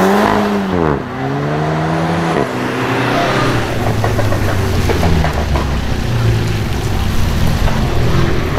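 Volkswagen Golf 7 GTI's turbocharged four-cylinder accelerating hard, its pitch climbing and dropping at two quick upshifts, about one second and about two and a half seconds in. Then a second Golf 7, an R, runs at lower, steadier revs under a steady hiss from the wet road and rain.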